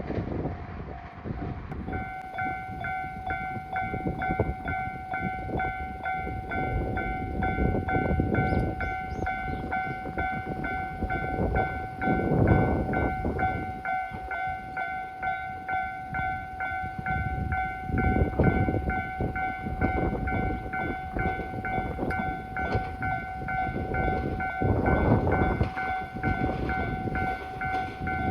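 Japanese level crossing warning bell, starting about two seconds in and then ringing steadily, over the rumble of a train on the rails that swells louder every few seconds.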